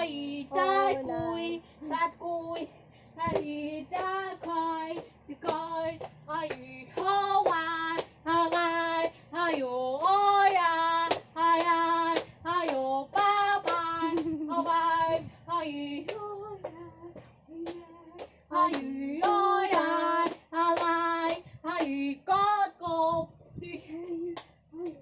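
A young girl singing a song out loud without accompaniment, in held, sliding notes phrase after phrase, with a few sharp hand claps near the end.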